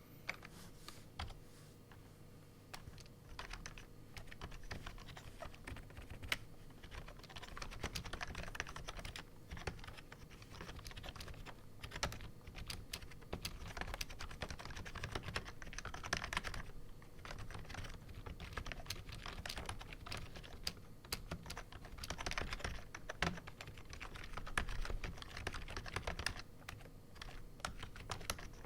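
Continuous fast typing on an AppleDesign Keyboard with Alps slider-over-dome switches and PBT dye-sub keycaps: a dense, uneven run of key clicks.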